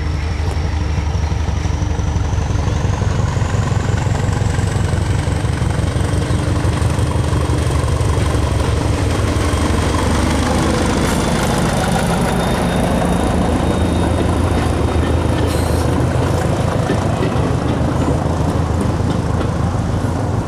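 British Rail Class 205 'Thumper' diesel-electric multiple unit running past, its four-cylinder English Electric diesel engine giving a deep, heavy throb. A high whine rises in pitch over the first several seconds as the unit gathers speed, and a couple of short clicks come in the second half.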